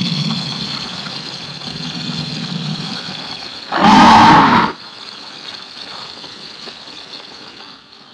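Alligator growling with a low, rumbling sound, then a single loud, short roar lasting under a second about four seconds in, followed by a quieter rumble.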